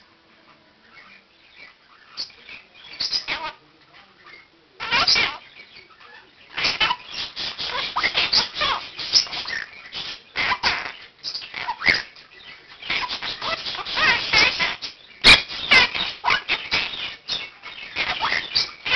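Pet Quaker parakeet and other caged birds calling and chattering. It is fairly quiet for the first few seconds, with a short outburst about five seconds in, then dense, busy calling from about seven seconds on. A single sharp click sounds about fifteen seconds in.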